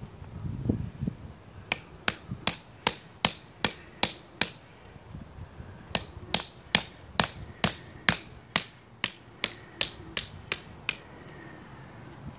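Batoning: a hatchet head striking the spine of a knife blade driven into a stick, metal on metal. About eight sharp strikes at two to three a second, a pause of about a second and a half, then a longer run of about a dozen more at the same pace.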